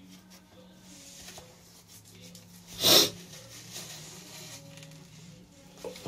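A woman sneezes once, short and sharp, about three seconds in: a head-cold sneeze. A faint steady low hum runs underneath.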